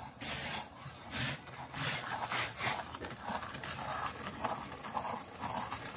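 Wet clay being rubbed and scraped by hands and a thin tool on a potter's wheel, in irregular hissing strokes.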